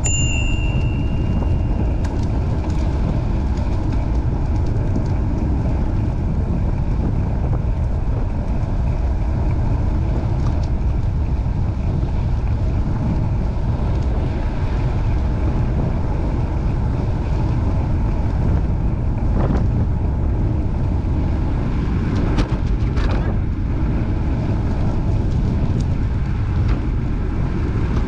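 Wind buffeting the microphone of a camera on a moving ride along a trail: a steady, loud low rumble. A brief high tone sounds at the very start.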